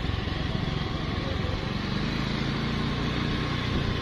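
Motorcycle engine running steadily while riding, heard from on the bike.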